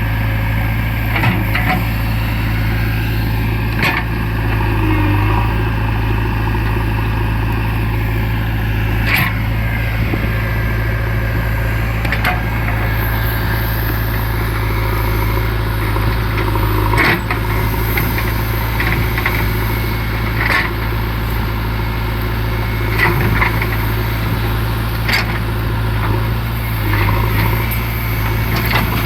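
JCB 3DX backhoe loader's diesel engine running steadily, with sharp knocks and clanks every few seconds.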